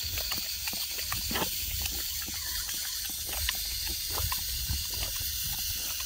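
Garden hose spray nozzle hissing steadily while a yellow Labrador retriever bites and laps at the stream, making irregular wet snaps and splashes.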